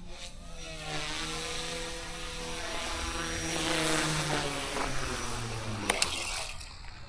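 Eachine E120S small electric RC helicopter flying, its rotor and motor whine growing louder as it comes close, then falling in pitch as it comes down to land. Two sharp clicks about six seconds in as it touches down, then the whine cuts off.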